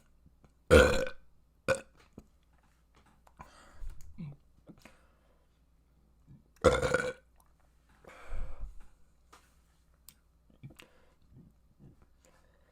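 A person burping: two long, loud burps about six seconds apart, with a short burp just after the first and quieter sounds in between.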